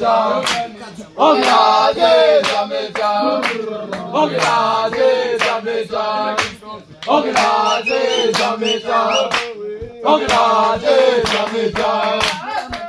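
Group of male voices chanting in song over a steady percussive beat of about two strikes a second.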